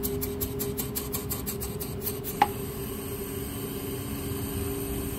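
Panasonic inverter air conditioner's outdoor unit, switched on in cool mode, with a steady low hum and a rapid ticking of about five ticks a second. The ticking stops a little over two seconds in with one sharper click.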